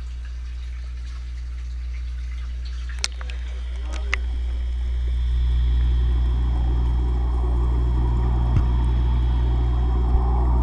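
Water pouring from a pipe into a fish tank, first a splashing trickle and then, from about halfway, a muffled, louder rushing of the bubbling inflow heard from under the water. A steady low hum runs under it. Two sharp knocks come about three and four seconds in.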